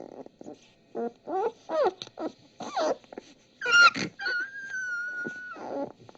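Young nursing puppies whimpering: several short cries that fall in pitch, then a louder high cry about four seconds in that turns into a long, steady high squeal.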